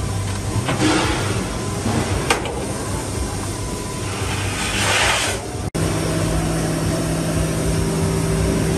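Hydraulic CNC press brake running: a steady machine hum with swells of hiss as the ram moves to bend the sheet. The sound breaks off for an instant about six seconds in, and a steadier hum carries on after.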